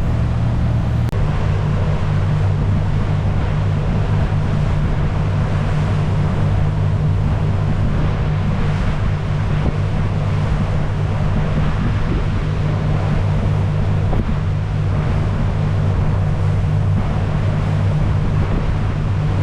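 Motorboat underway: its engine running at a steady cruising speed, with water rushing past the hull and wind buffeting the microphone.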